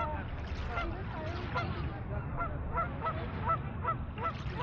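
A flock of geese honking, with short calls coming two or three a second and overlapping, over a steady low wash of water at the shore.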